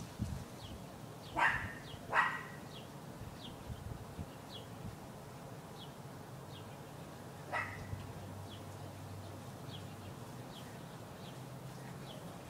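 A dog barking: two barks close together about a second and a half in, and one more bark about seven and a half seconds in, over a faint high chirp that repeats about once a second.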